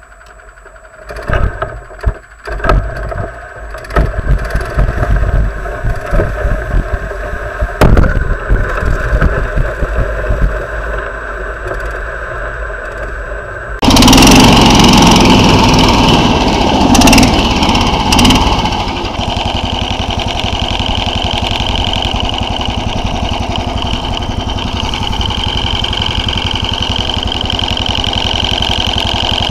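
Knocks and rattles over a low rumble, then the small engine of a SnowDog tracked snow machine running steadily as it tows a sled over snow, loudest for the first few seconds after it comes in about halfway through.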